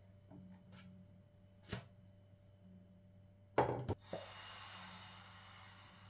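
Kitchen handling noise from a crepe pan and utensils: a light tap, then a short clatter of three or four loud knocks a little past halfway, followed by a soft steady hiss.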